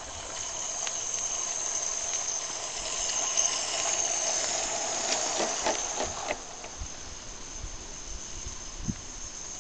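Small live steam Cheddar Iver locomotive (16mm scale) running, its chuff pipe exhaust giving a steady, high steam hiss. It grows louder toward the middle and eases off again, with a few sharp clicks about five to six seconds in.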